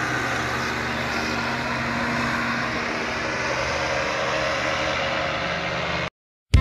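Engine and propeller of a powered parachute in flight, a steady drone that cuts off suddenly near the end.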